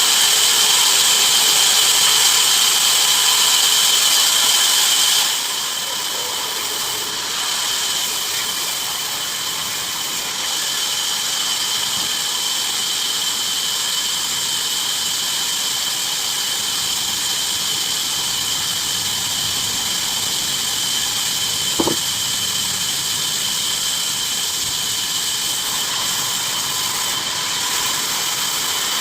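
Bandsaw machine running through wood with a steady high-pitched whine over a hiss. The whine drops noticeably about five seconds in and carries on steadily, with a single sharp click a little after twenty seconds.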